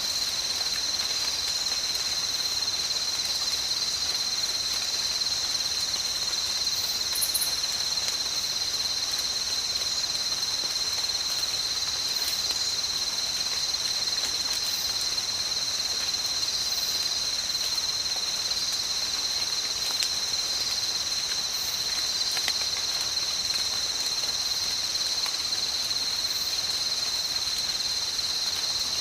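Tropical ambience: a steady chorus of insects making a continuous high buzzing trill over a soft, even hiss of rain, with a few faint ticks now and then.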